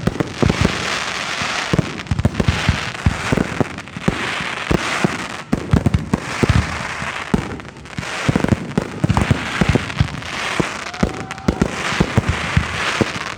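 Fireworks display going off: a rapid, irregular string of booms from bursting shells, several a second, over swells of crackling hiss.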